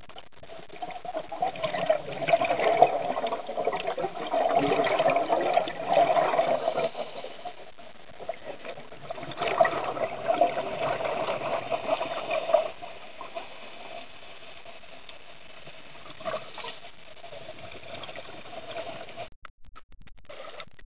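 Underwater water noise picked up by a camera in the sea: a rushing, bubbling hiss over a steady hum. It swells louder twice, for several seconds starting about two seconds in and again around the middle, then settles and breaks off shortly before the end.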